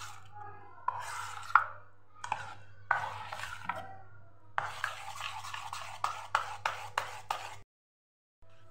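Steel spoon stirring thick, gritty dal-and-curd batter in a stainless steel bowl, scraping the sides in quick repeated strokes. The sound cuts out for a moment near the end.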